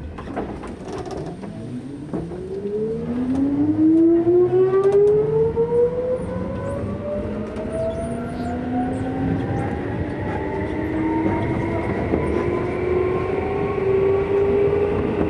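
Keisei 3400 series electric train pulling away from a station, heard from inside the car: a whine from its traction motors and gears, several pitches climbing together, steeply for the first few seconds and then levelling off as it speeds up, over the rumble of the wheels on the rails.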